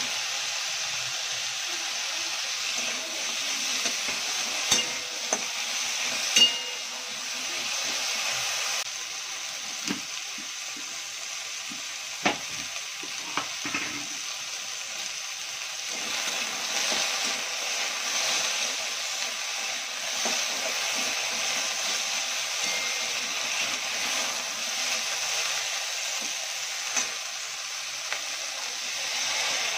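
Cubed paneer and potatoes frying in oil in a kadhai, a steady sizzle throughout. A few sharp metal clinks from the spatula and utensils against the pan come around five and six seconds in, around twelve to fourteen seconds, and once near the end.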